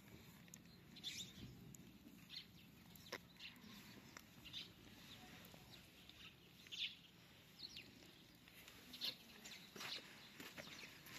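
Faint, scattered short bird calls, about one a second, some falling in pitch, over a quiet background.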